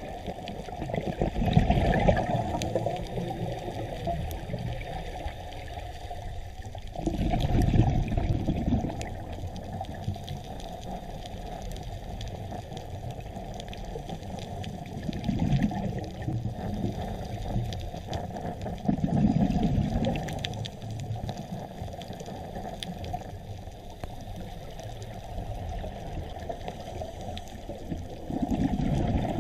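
Underwater sound through a diver's camera: a steady low rush of water, broken every few seconds by a louder gurgling surge of exhaled bubbles from a scuba regulator.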